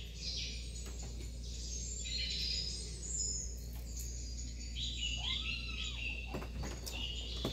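Birds chirping in the background: high, shifting twitters, with one rising-and-falling whistled note past the middle, over a steady low hum.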